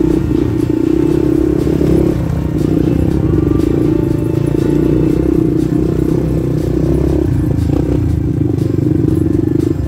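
Single-cylinder dirt bike engine running under load on a rough trail, the throttle easing off briefly about two seconds in and again past seven seconds.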